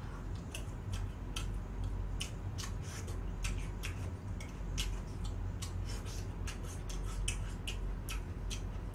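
Close-miked chewing of crispy fried chicken: a string of irregular, crisp crunching clicks, about three or four a second, over a steady low hum.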